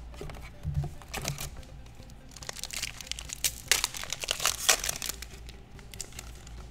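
Foil wrapper of a Magic: The Gathering booster pack being torn open and crinkled by hand. Crackly rustling builds about two seconds in and lasts roughly three seconds.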